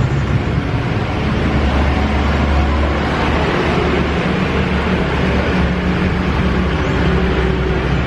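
Steady low hum of a motor vehicle's engine running, with a noisy wash of traffic over it.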